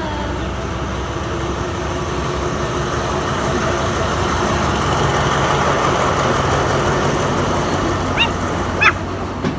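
Diesel train passing close by: a steady engine hum and rumbling wheel noise that builds to its loudest around the middle and then eases slightly. Two short, high rising whines near the end.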